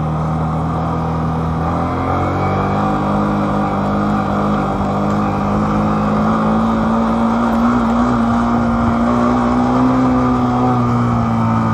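A vehicle's engine running under way. About two seconds in it picks up, rising in pitch as it accelerates, holds a steady climb, then eases off near the end.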